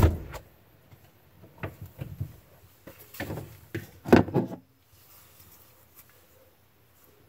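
Refrigerator door pulled open with a low thump, then a run of knocks and clatters as a glass pickle jar is lifted off the fridge shelf, loudest about four seconds in.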